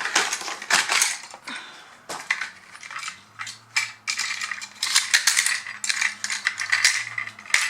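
Hands unpacking a plastic toy set: a run of irregular clicks, rattles and crinkling from plastic parts and packaging being handled and pulled apart.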